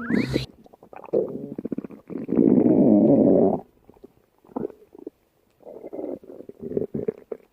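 Bubbly stomach growls: irregular gurgling rumbles in several bursts, the longest and loudest lasting about a second and a half from about two seconds in. A short sharp sound comes right at the start.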